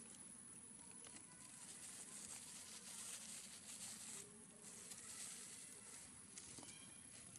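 Near silence: faint outdoor background with a soft high hiss that swells twice.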